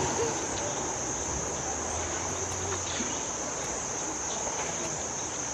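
Steady, high-pitched drone of a chorus of insects shrilling without a break.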